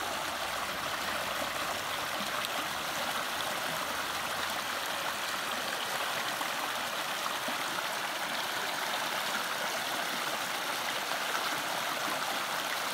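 Small rocky creek flowing steadily over stones.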